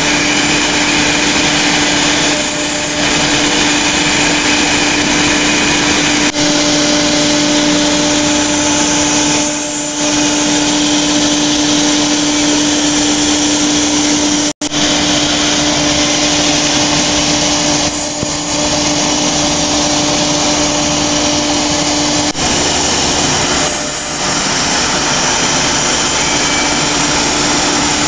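Four-spindle CNC router running and machining a wood panel, its spindle giving a steady tone over the rushing noise of the dust extraction, dipping briefly a few times.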